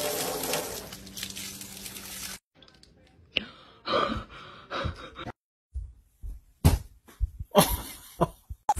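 A jet of water spraying against a window pane, a steady hiss that cuts off suddenly about two and a half seconds in. Then a baby's short vocal sounds and gasps, and later several sharp thuds.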